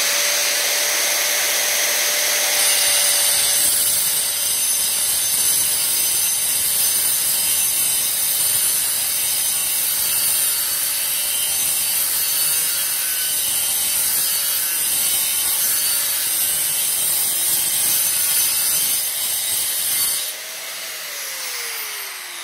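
Angle grinder with a 125 mm Bosch Expert diamond metal-cutting disc, motor whining steadily. The disc bites into a steel profile a couple of seconds in and cuts with a hiss. The cut ends about 20 seconds in, and the motor is switched off and winds down near the end.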